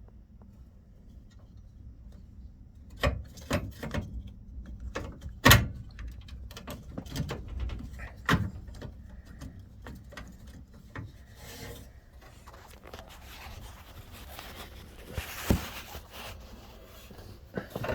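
Hands working a 1984 Chevy Blazer's headlight switch: scattered clicks, knocks and rubbing, starting about three seconds in, as the release button is pushed and the knob wiggled to free the switch rod.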